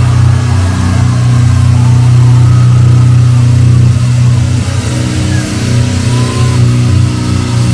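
Loud live concert sound through a club PA: a sustained, heavy low bass drone that holds steady, with faint crowd voices over it.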